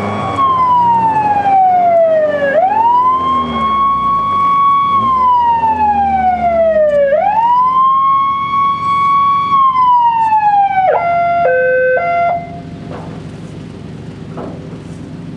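Truck-mounted electronic police-style siren wailing: a tone that slowly falls and rises again, three times over, then switches to a short run of stepped alternating notes before cutting off about twelve seconds in. A lower steady running noise, like an idling engine, lies underneath and carries on after the siren stops.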